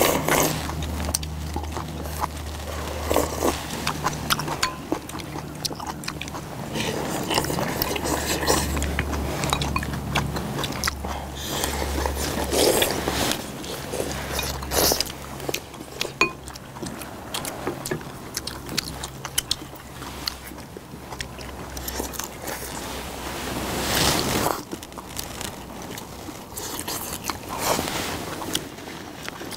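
People eating a meal of soup, rice and side dishes: slurping soup from spoons and bowls, chewing, and chopsticks and spoons clicking against ceramic bowls. A low steady rumble runs underneath and stops about 24 seconds in.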